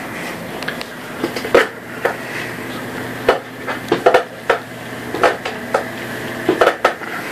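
Irregular light knocks and clicks, about a dozen scattered through, over a steady low hum.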